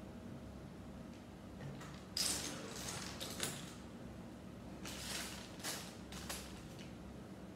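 Small plastic Lego pieces clicking and rattling as they are handled and fitted onto a minifigure: a handful of short clicks and brief rustles, starting about two seconds in.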